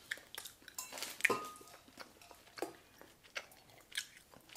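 Chewing sour candy, with scattered short wet mouth clicks and smacks, the loudest about a second in, and a sip from a cup near the end.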